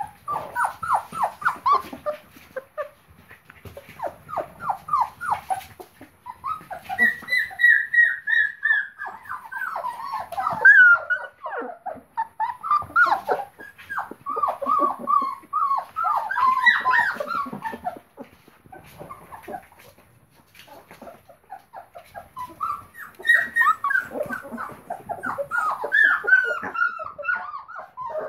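A litter of 25-day-old Labrador Retriever puppies whimpering and squealing in many short high-pitched calls, coming in bouts with a lull of a few seconds about two-thirds of the way through.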